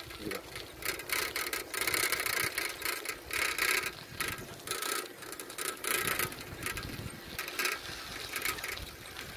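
Irregular rattling and clattering from the moving vehicle that carries the camera, coming in uneven bursts with no steady engine note.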